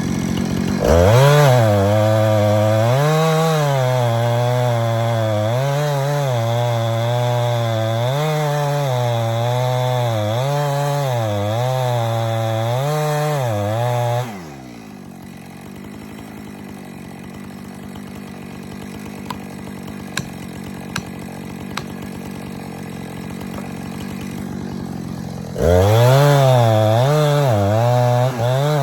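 Chainsaw cutting wood for about 13 seconds, its engine pitch dipping and recovering again and again as it loads up in the cut. The throttle is then released, and the engine winds down and runs quietly with a few light clicks. It revs back up near the end.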